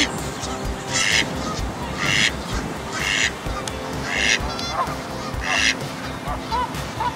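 Waterfowl calling: a high call repeats about once a second, then gives way to fainter short chirps near the end.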